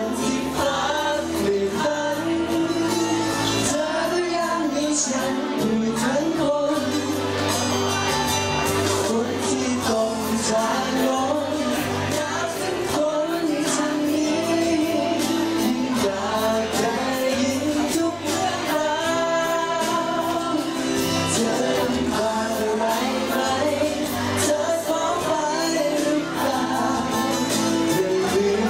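A man singing a Thai pop song live into a microphone over music accompaniment, continuously.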